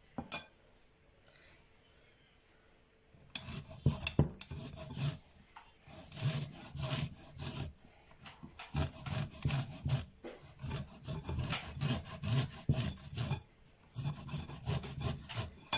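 Fresh ginger root being grated on a fine hand grater: quick back-and-forth scraping strokes in several runs with short pauses, starting about three seconds in after a single click.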